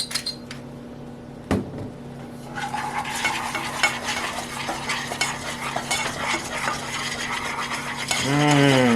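A spoon stirring and scraping a saucepan of thick caramel sauce, starting a few seconds in as a steady run of small scrapes and clicks. A brief falling voice sound is heard near the end.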